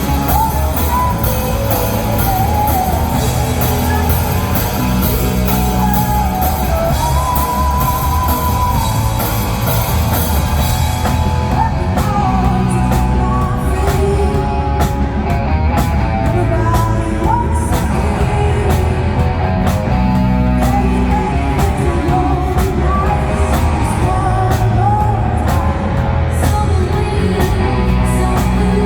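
Rock music with a singing voice over electric guitar, bass and drum kit. The bright high wash of cymbals thins out about eleven seconds in.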